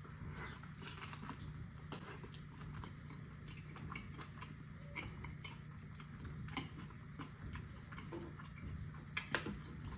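Quiet chewing and small wet mouth clicks of someone eating sticky barbecue ribs, over a steady low hum, with a sharper click near the end.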